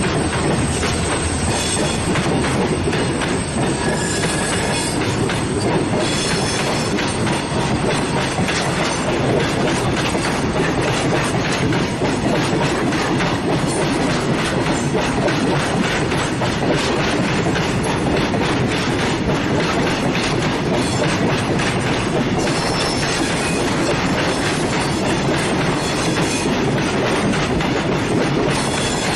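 Freight train carrying trucks rolling steadily along the track, its wheels clattering over the rail joints. A faint high whine runs through the first few seconds.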